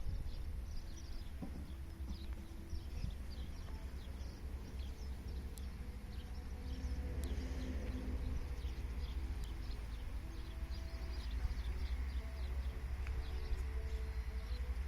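Yamaha XT 660 X's single-cylinder four-stroke engine idling with a steady low thumping, with faint high chirps over it.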